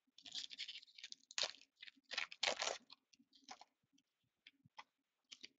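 Wrapper of a Black Diamond hockey card pack crinkling and tearing as it is ripped open, in a run of crackling bursts for about three and a half seconds, followed by a few light clicks of the cards being handled.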